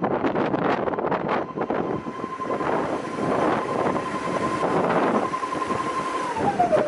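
Quick Wood RO1100 brush sanding machine running with a steady whine, which falls in pitch near the end as the machine is switched off and spins down. Wind buffets the microphone throughout.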